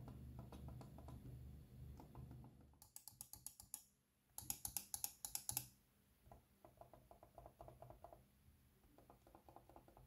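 Logitech MX Master 2S mouse being clicked by hand: two quick runs of sharp, loud clicks in the middle, then a few seconds of much softer clicks from a button fitted with a replacement silent micro switch.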